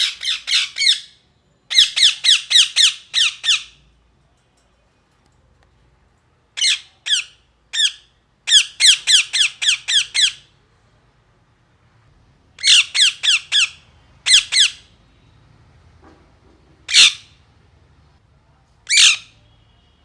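Ringneck parakeet squawking in quick bouts of short, harsh calls that each slide downward, about five a second, with pauses between bouts and two single calls near the end.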